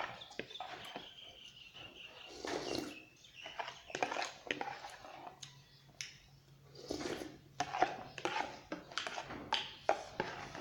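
Close-miked eating of rice-noodle soup: wet chewing and slurping in irregular short spells, with many sharp mouth and utensil clicks.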